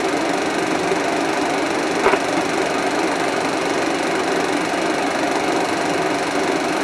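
Steady hiss and hum of an old 16mm film soundtrack with no narration or music, and one click about two seconds in.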